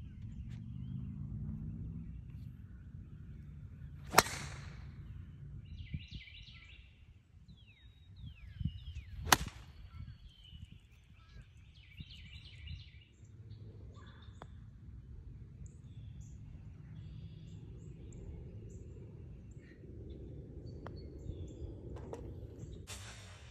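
Golf club striking a ball twice: sharp single clicks about four and nine seconds in. Birds chirp in between, over a steady low rumble of wind on the microphone, and there is a faint tap of a putt near the end.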